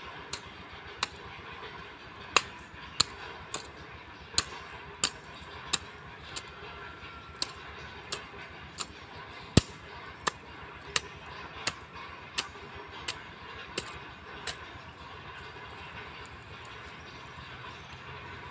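A hand hoe chopping into soil during weeding: a steady run of sharp strikes, about one and a half a second, that stops about three-quarters of the way through.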